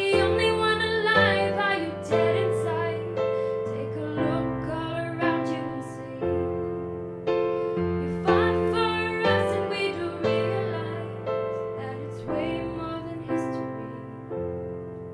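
Slow, gentle piano music, with notes struck every second or so and left to ring under a melody.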